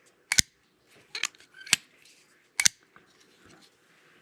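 KG pocket knife's blade on its ball-bearing pivot being snapped open and shut, giving four sharp clicks spread across a few seconds.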